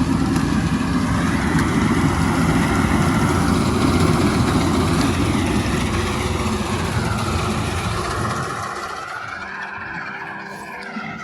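A motor engine running loud and low, its rumble dropping away about eight and a half seconds in.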